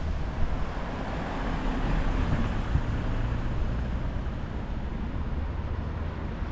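Street ambience: steady road traffic noise, swelling slightly a second or two in, over a low rumble.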